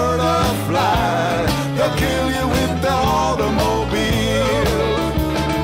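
Background rock music with a steady drum beat and a bending lead melody, between sung lines.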